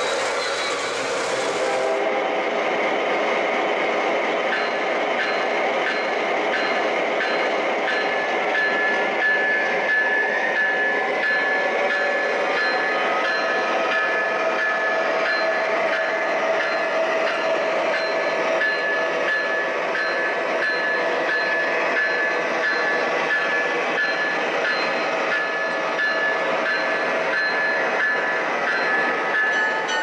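O-gauge model diesel locomotive's electronic sound system blowing its multi-tone horn. It gives a run of short blasts a few seconds in, then long held blasts.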